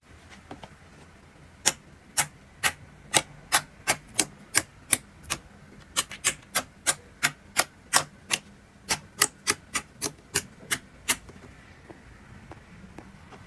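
A run of sharp clicks or taps, about two to three a second, with a short gap partway through. They stop a couple of seconds before the end.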